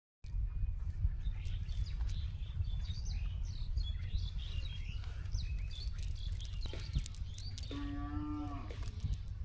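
Birds chirping throughout over a steady low rumble, and a little less than eight seconds in a cow lets out a single moo lasting about a second, held at one pitch.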